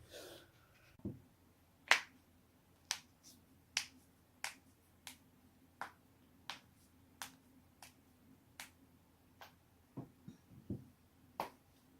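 Knuckle joints being cracked one after another: a run of sharp single pops about every two-thirds of a second, the loudest about two seconds in. A few soft low thumps come between them.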